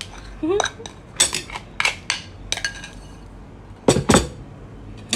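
Ceramic bowl, plate and metal cutlery clinking as a bowl of rice is turned out onto a plate: a few short, sharp clinks, then a heavier knock about four seconds in.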